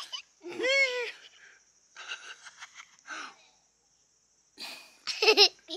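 Children giggling: a short high squeal about a second in, then breathy giggles and huffs, a brief pause, and another burst of laughter near the end.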